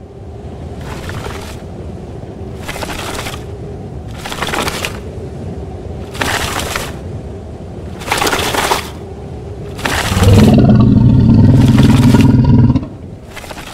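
Slow, regular scraping strokes, about one every two seconds, over a low steady rumble, then a loud low roar for about two and a half seconds near the end.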